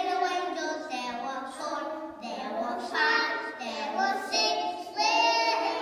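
A group of young children singing a song together, with louder sung phrases about three and five seconds in.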